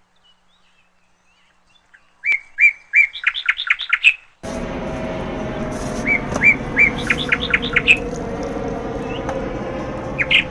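A bird chirping: three short notes, then a quick run of rising chirps, about two seconds in, and the same phrase again about six seconds in. From about four seconds in, a steady background noise with a faint low tone runs under it.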